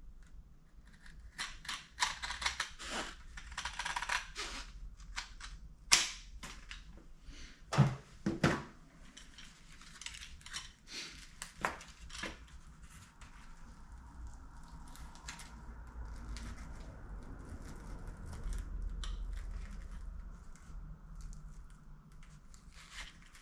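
Hand snips cutting and being worked: a run of sharp clicks and snaps over the first dozen seconds, the loudest about six and eight seconds in, then a faint steady hum.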